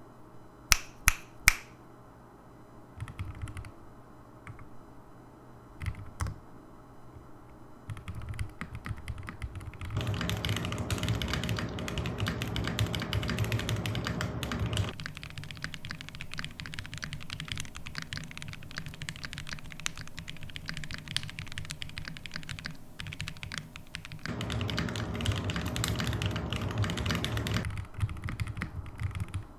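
Typing on a Sperno59 mechanical keyboard with a full aluminum case, FR4 plate, Nebula switches, Durock V2 screw-in stabilizers and DCX keycaps, with no foam inside. A few single key presses come first, then continuous fast typing from about eight seconds in. The typing is heavier and louder in two stretches, lighter in between.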